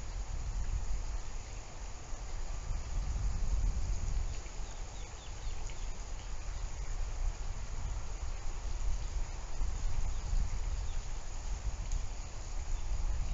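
Steady outdoor background noise with a low, fluctuating rumble and faint scattered ticks; no distinct event stands out.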